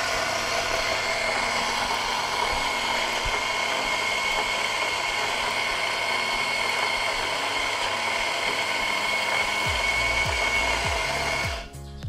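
Electric coffee grinder running steadily as it grinds a 14-gram dose of coffee beans, with a steady high whine over the grinding noise. It stops suddenly near the end as the 12-second timer cuts its power.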